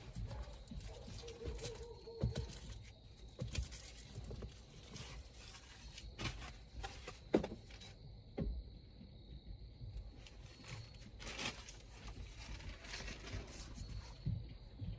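Scattered light clicks, taps and rustles of hands rummaging around a car's interior, searching for a dropped screw.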